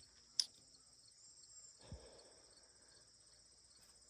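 Faint, steady chirping of insects in the background, with one short sharp click about half a second in.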